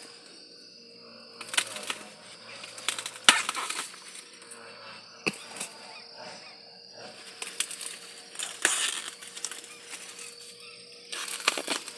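Corn plants rustling and crackling in irregular bursts, with a few sharp snaps, as ears of green corn are picked by hand.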